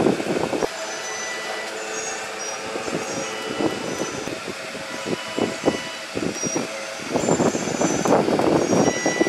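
Long plastic cable tubes rattling and rustling against each other as a bundle is sorted by hand, with a few separate clicks in between. The rattling is densest at the very start and again over the last couple of seconds, over a steady background hum.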